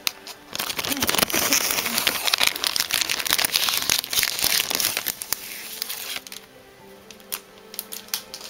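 Plastic wrapping of a Pokémon card pack crinkling loudly for about six seconds as it is handled and pulled open, then a few light clicks, over soft background music.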